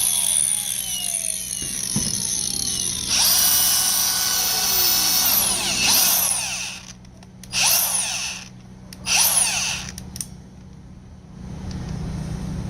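Milwaukee M18 125 mm cordless angle grinder running free with no disc fitted. A high whine slowly falls as it coasts down, then the grinder is spun up for about two seconds and let go so the whine glides away. Two short trigger blips follow, each rising and dying within a second.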